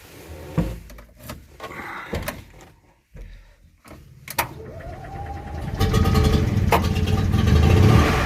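Steyr-Puch Haflinger's air-cooled flat-twin engine: several clunks and clicks, then about four and a half seconds in a rising whine as it cranks, and it catches and runs loudly for the last couple of seconds.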